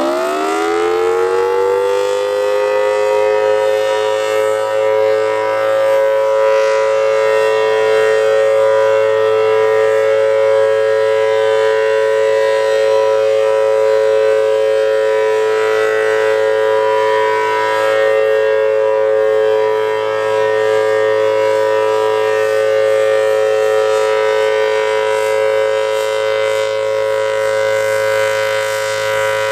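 Federal Signal Thunderbolt 1000T outdoor warning siren with a 4/5-port rotor, finishing its wind-up within the first second and then holding a loud, steady two-note chord: the Alert signal, a steady tone.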